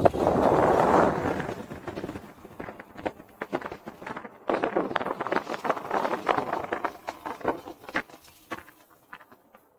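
Edges scraping and chattering over hard-packed, thin snow during a descent. A loud rush in the first two seconds gives way to a dense run of rattling clicks and knocks in the middle, fading out near the end.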